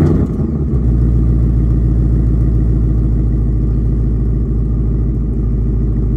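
A 2022 Ford Mustang Mach 1's 5.0-litre V8, breathing through a Steeda H-pipe and the factory active exhaust with the valves open, just after start-up. The start-up flare eases within the first second into a steady, deep, throaty fast idle.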